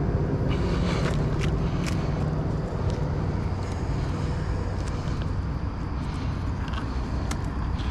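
Steady low engine hum that slowly fades, with a few light clicks over it.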